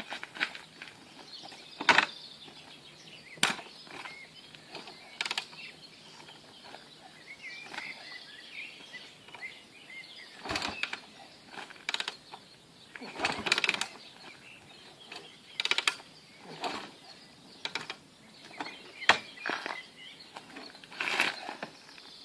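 Faint birdsong chirping in the background, broken by scattered irregular knocks and clicks, the loudest about 2 s, 13–14 s and 19 s in. No engine is running.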